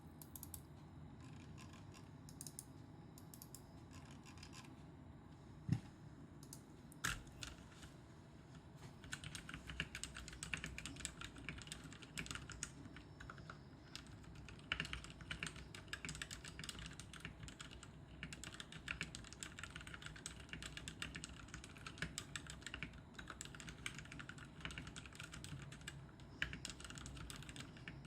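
Typing on a Royal Kludge RK71 mechanical keyboard with lubed Outemu Red linear switches and lubed, clipped Cherry stabilizers. Scattered keystrokes with two louder knocks for the first several seconds, then steady fast typing from about nine seconds in.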